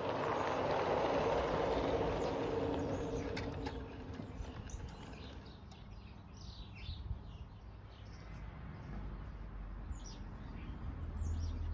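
A garden-scale model locomotive runs past on the track with a steady hum and rolling noise that fades away about four seconds in. After that, small birds chirp repeatedly.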